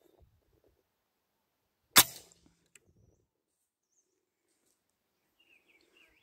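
A single rifle shot about two seconds in: one sharp crack with a short tail. The on-screen note says it passed just by the rock cavy's ear, a near miss.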